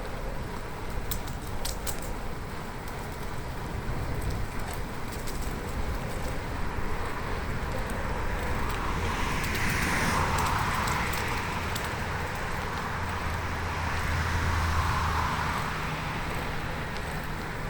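Road noise heard from a moving bicycle, with a few light clicks near the start. Motor traffic passes twice, swelling in loudness about halfway through and again near the end, the second time with a low engine hum.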